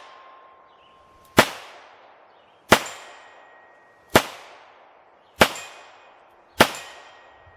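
Five shots from a Smith & Wesson Model 19 .357 Magnum revolver with a 4-inch barrel, fired at a steady pace about every second and a quarter. Each crack has a short echo trailing off after it.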